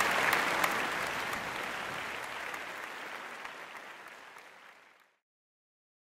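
Crowd applause dying away steadily and ending about five seconds in.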